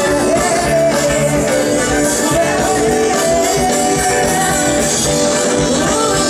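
Live band music played loud and steady through a concert PA during a sound check, with a bass line under sustained melody notes.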